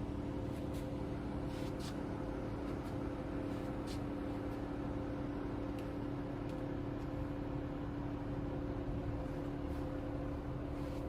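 Nomura NN-32YB2 Swiss-type CNC automatic lathe running with a steady, even hum, with a few faint scattered clicks.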